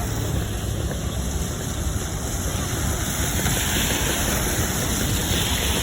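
Steady running noise of a motor vehicle mixed with wind on the microphone: a low rumble and hiss with no horn tune in it, the hiss swelling a little after about three seconds.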